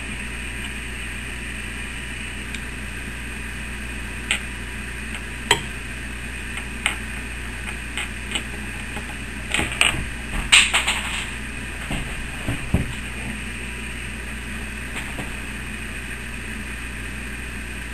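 Scattered light clicks and knocks of a sewing machine's parts being handled, over a steady background hum.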